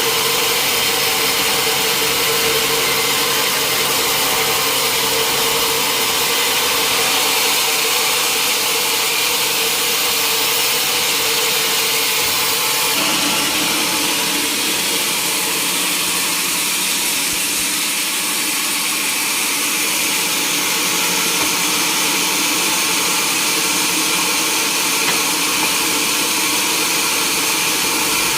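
Sawmill machinery running steadily, an engine-driven saw cutting timber, with its tone shifting noticeably about halfway through.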